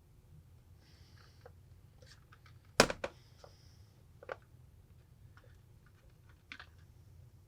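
Sharp clicks and snaps as a metal spudger pries at the seam between a Galaxy Tab 4's chrome bezel and its back cover. The loudest snap comes about three seconds in, quickly followed by a second; fainter clicks come later.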